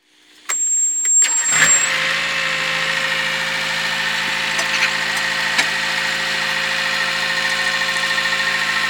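JCB 3DX backhoe loader's diesel engine starting up, catching about a second and a half in, then idling steadily. A brief high thin tone sounds just before it catches.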